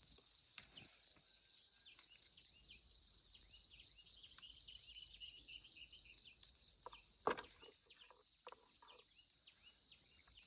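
Insect chorus: a high-pitched trill pulsing rapidly and steadily, with scattered short bird chirps. A few knocks or rustles cut through, the loudest about seven seconds in.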